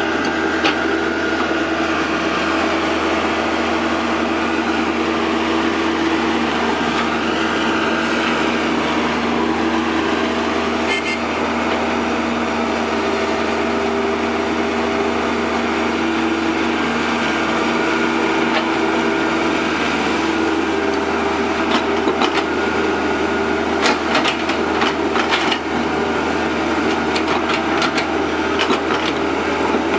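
Cat 308C mini excavator's diesel engine running steadily under hydraulic load as it digs wet mud, its pitch shifting slightly as the arm and bucket move. About three-quarters of the way through comes a run of sharp knocks and clatter.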